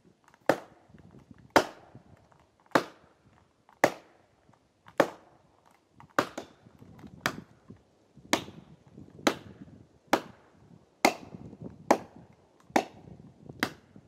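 About fourteen hard, evenly paced axe blows at the base of a beech tree, roughly one a second, each a sharp crack with a short ring.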